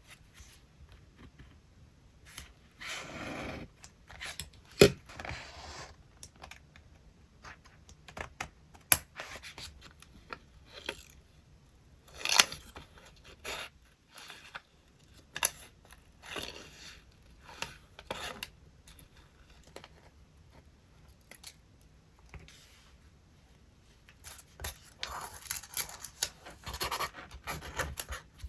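Paper being handled and cut: rustling and scraping of paper sheets with scattered scissor snips and sharp taps, and longer stretches of rustling about three seconds in and near the end.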